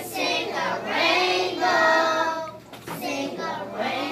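A group of young children singing together, holding one long note in the middle.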